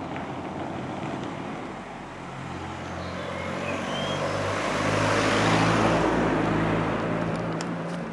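A motor vehicle passing by: engine and tyre noise swell to a peak about five to six seconds in, then fade.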